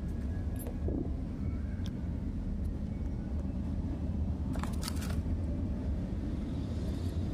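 Steady low rumble, with a few light metallic clicks as small air-rifle valve parts are handled, a quick cluster of them about four and a half seconds in.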